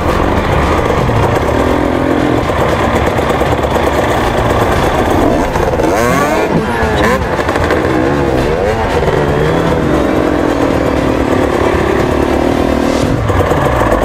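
KTM two-stroke TPI enduro bike engines revving in short bursts under load while climbing over rocks, the revs rising and falling quickly around the middle.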